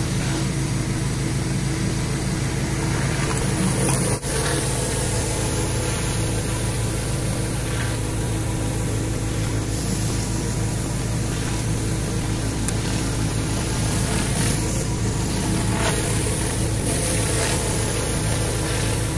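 Pressure washer engine running steadily under the loud hiss of a rotary surface cleaner spraying water onto concrete. There is a short break about four seconds in.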